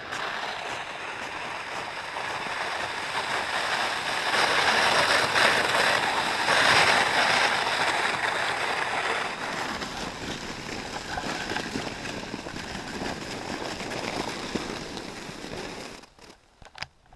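Steady rushing, crunching noise of walking on a snow-packed road, loudest about five to eight seconds in, dropping away sharply near the end.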